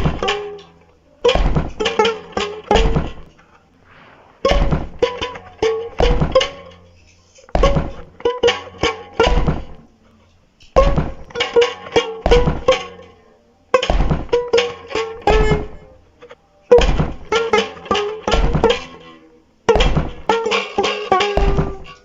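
A band playing a stop-start riff, with drums and guitar hitting together in clusters of five or six hard strokes that repeat about every three seconds, each separated by a short break.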